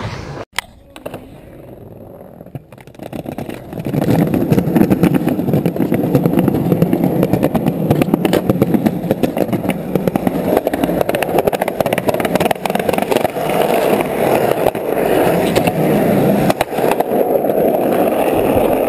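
Skateboard wheels rolling over rough street pavement, a loud continuous gritty rumble that starts about four seconds in after a quieter stretch.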